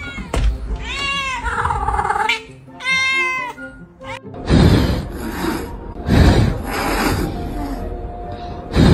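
A cat meows twice, two drawn-out meows that bend in pitch. Then, about four and a half seconds in, a run of loud, hissy bursts follows.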